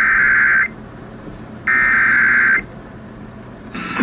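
Emergency Alert System SAME header: two bursts of about a second of warbling digital data tones, a second apart, with faint radio hiss in the pauses. The coded header introduces the tornado warning message that follows.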